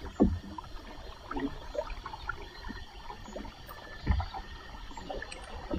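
Wet nylon gill net being hauled up over a wooden boat's gunwale, water dripping and trickling off the mesh in small scattered splashes. Two dull thumps come, one just after the start and one about four seconds in.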